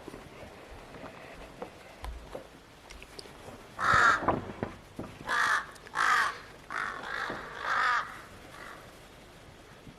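A crow cawing, about six calls in a row starting about four seconds in and stopping about eight seconds in.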